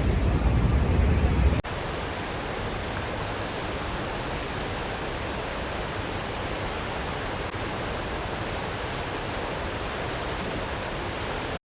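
Steady, even rush of splashing water from an outdoor water fountain. For the first second and a half it is overlaid by a heavier low rumble, and after a sudden cut it runs on at a lower level before stopping abruptly near the end.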